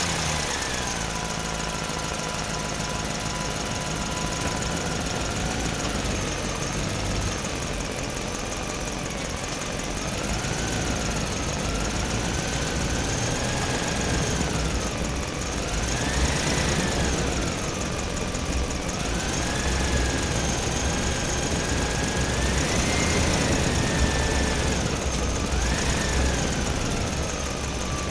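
A small motor running, its whine slowly rising and falling in pitch several times over a low rumble.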